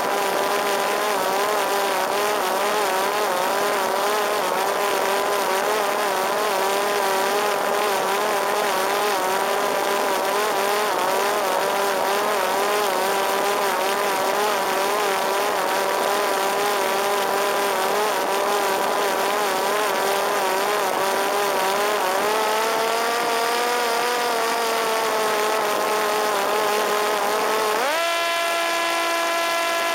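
Parrot Disco fixed-wing drone's electric motor and propeller whining with a wavering pitch over a steady hiss; about two seconds before the end the motor speeds up sharply and its pitch jumps higher.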